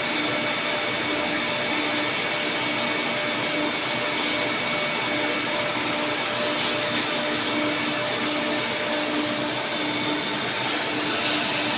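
Multi-spindle deep-hole gun drilling machine running while drilling gun barrels: a steady whir and hiss with a few fixed tones and a low hum that throbs regularly.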